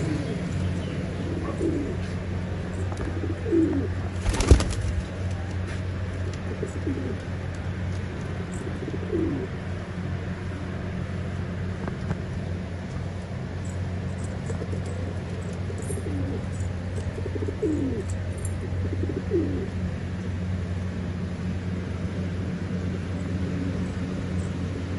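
Racing pigeons cooing in their loft, short calls every second or two over a steady low hum. One sharp knock comes about four and a half seconds in.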